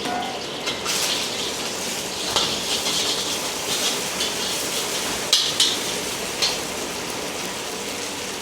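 Food sizzling in a street-stall wok as it is stir-fried, with a metal ladle scraping and clanking against the wok several times.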